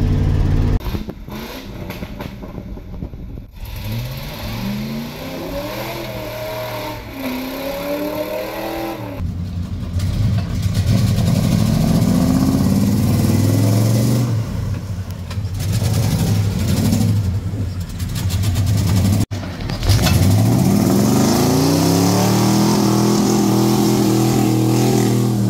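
Ford F-150 pickup's engine revving in several surges while driving off-road, its pitch rising with each push of the throttle and settling between them.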